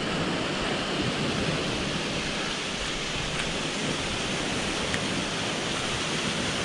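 Land-drainage channel running with rainwater off the land, a steady rush of falling water, with sea surf behind it.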